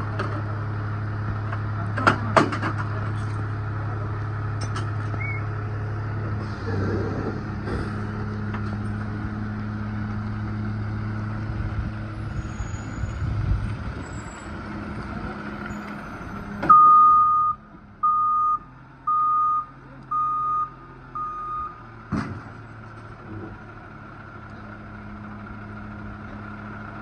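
Rear-loader garbage truck's engine running steadily, with a couple of sharp clanks about two seconds in. Later its reversing alarm sounds five short beeps, about one a second, as the truck backs up, and the engine then settles to a quieter idle.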